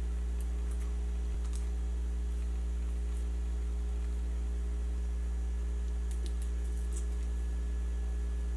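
Steady low electrical hum with its higher overtones, constant throughout, with a few faint small clicks and crinkles of the paper baggies being pressed onto the nailed frame, most of them in a cluster near the end.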